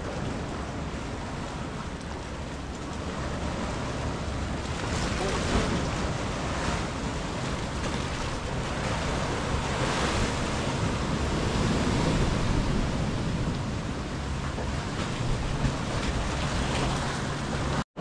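Ocean surf washing and breaking on a rocky shore, with wind buffeting the microphone as a steady low rumble. The sound cuts out for an instant just before the end.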